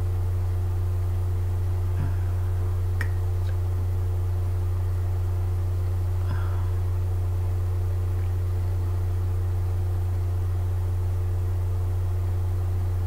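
A steady low hum with two fainter steady tones above it, broken only by a few faint clicks.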